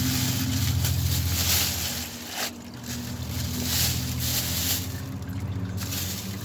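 CVT transmission fluid draining from a Nissan Altima's opened transmission into a plastic trash bag, as a steady rushing trickle over a steady low hum.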